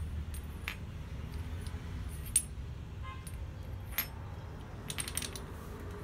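Steel die stock clinking and scraping against a steel pipe guide as it is set in and slid into the guide by hand, test-fitting the die. A few light metal clinks, the loudest about two seconds in and several close together near the end, over a low steady hum.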